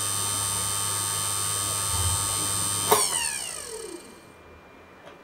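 Spindle motor of a Genmitsu PROVerXL 4030 V2 desktop CNC running with a steady high whine and low hum, then a click about three seconds in, after which the whine falls in pitch as the spindle winds down and stops.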